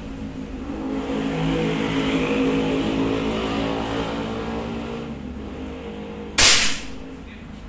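A motor vehicle's engine swells and fades as it passes by, then, about six seconds in, a single sharp crack of a PCP air rifle shot, the loudest sound here.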